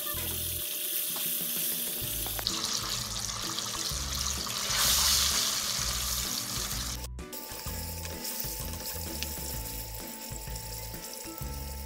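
Chicken deep-frying in a pot of hot oil: a steady bubbling sizzle that swells loudest about five seconds in, as tongs stir and turn the pieces. Background music runs under it.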